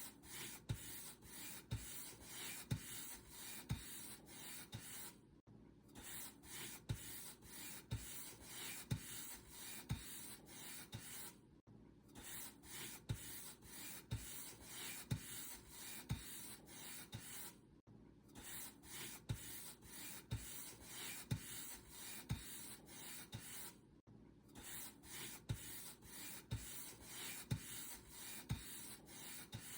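Paint brush bristles swept back and forth over a surface in quick, even strokes, about one and a half a second, each a dry scratchy swish. There is a short pause about every six seconds.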